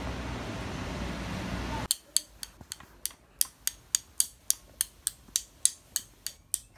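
Steady street traffic hum, then after a cut a regular series of sharp light taps, about four a second. The taps are a paintbrush loaded with white paint being tapped against a pencil to spatter dots onto a painting.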